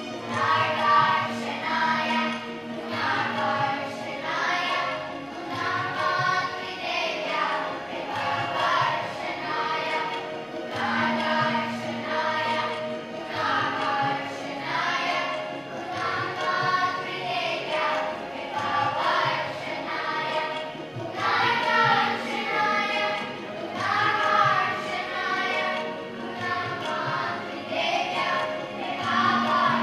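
Children's choir singing a song in unison phrases, over steady held instrumental tones.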